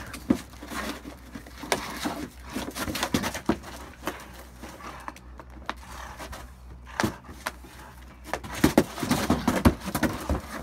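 A chocolate Labrador worrying a cardboard box on stone paving: the cardboard scrapes, crumples and knocks against the slabs in fits and starts. It is quieter for a few seconds in the middle, then busy again near the end.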